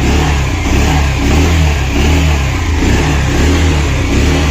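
Bajaj Pulsar BS6 single-cylinder motorcycle engine running, its revs rising and falling about once a second. The engine has a freshly fitted timing chain.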